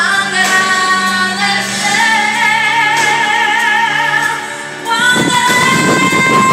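Music with a woman singing long, held notes with vibrato over a steady accompaniment. Near the end it dips briefly, then picks up again.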